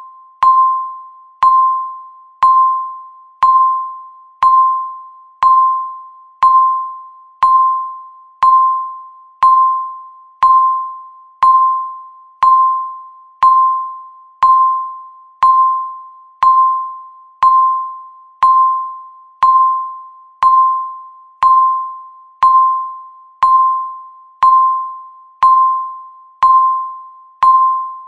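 Electronic countdown-timer beep sounding once every second, a single high tone that starts sharply and fades away before the next one.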